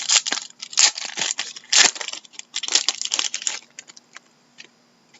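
A trading card pack's wrapper crinkling and tearing as it is opened by hand, in a string of rustling bursts for about three and a half seconds, then a few light taps of cards being handled.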